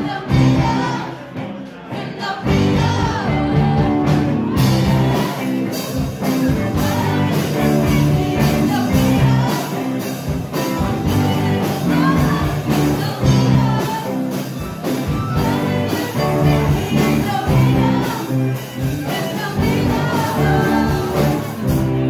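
Live band playing a pop-rock song with sung vocals over electric guitars, bass and keyboard. The cymbals and drums come in fully about four seconds in.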